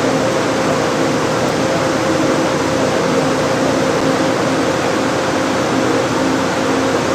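Steady mechanical rushing noise with a low hum from the shake-table test machinery, with no distinct cracks or crashes.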